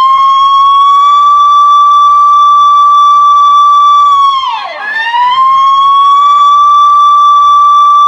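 Police car siren wailing: a high, steady tone held for about four seconds, which dips sharply and climbs back up about four and a half seconds in, then holds again.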